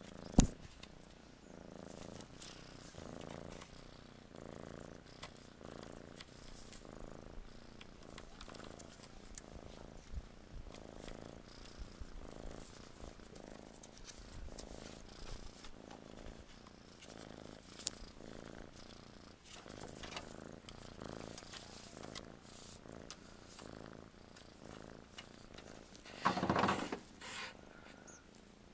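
Tabby domestic cat purring, the purr swelling and fading about once a second with its breathing. There is a sharp click at the very start and a louder sound about a second long near the end.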